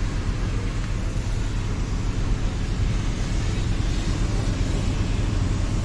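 A steady engine-like hum with a broad hiss over it, unchanging throughout.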